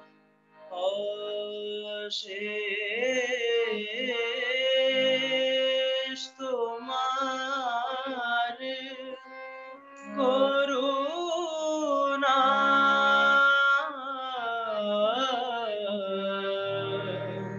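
A man's solo voice singing a slow devotional song in long, ornamented phrases, with short pauses for breath.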